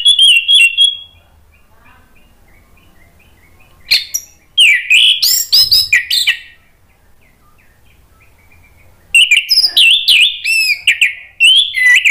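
Orange-headed thrush singing: three loud bursts of fast, varied whistled song with quick rising and falling notes. Faint soft twittering fills the gaps between the bursts.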